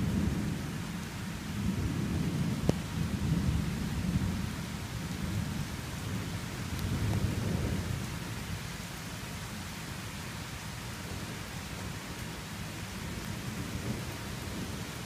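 Thunder rumbling in waves over steady rain, with one sharp click about two and a half seconds in. The rumble dies away about eight seconds in, leaving only the even hiss of the rain.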